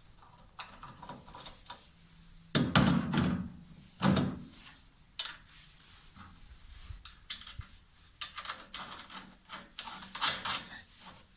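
Hand-fitting a rubber-tyred wheel onto a steel bolt used as an axle: metal clicks and rattles, with two louder knocks about three and four seconds in. Near the end the nut clicks as it is threaded onto the bolt by hand.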